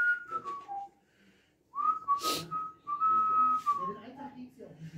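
A person whistling a tune in held notes, stepping down in pitch at the start and picking up again after a short pause. A short clatter sounds about two seconds in.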